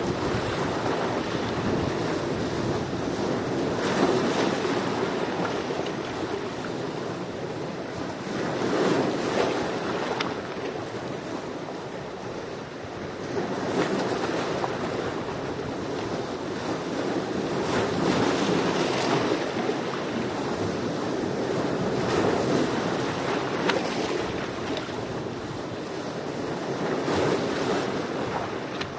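Sea waves washing in, in a steady rushing wash that swells about every four to five seconds.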